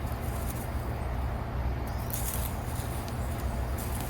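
Scratchy rustling in dirt from potatoes being dug up by hand, in two short bursts about two seconds in and near the end, over a steady low rumble.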